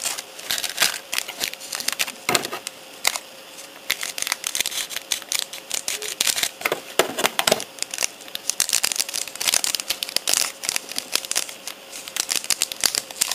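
Plastic snack wrapper and the cellophane sleeve of a trading card crinkling and crackling in quick, irregular handling noises as the card is pulled out of a chocolate wafer pack.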